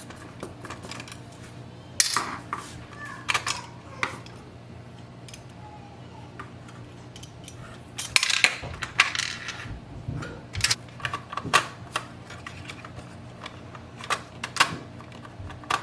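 Irregular clicks and short clatters of a screwdriver and hard plastic inkjet-printer parts being handled while screws are taken out, coming in small clusters with pauses between.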